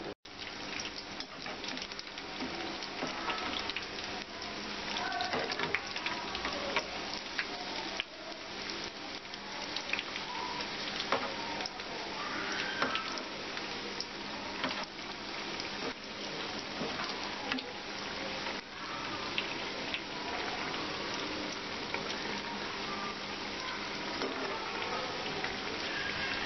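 Besan-battered bread fingers deep-frying in hot oil in a kadai: a steady sizzle with a dense patter of fine crackles.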